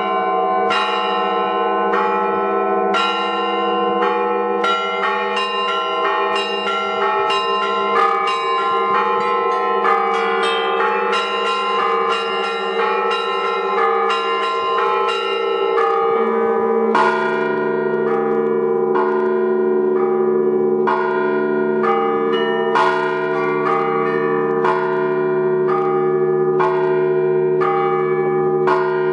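Russian-style belfry ringing on many bells: quick, continuous strikes on the smaller bells over the long, sustained hum of the larger ones. About halfway through, a deeper bell enters and the low tones shift.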